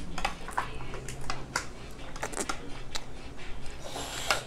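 Eating crab by hand: a quick, irregular run of small clicks, cracks and wet smacks from picking the shells apart and chewing.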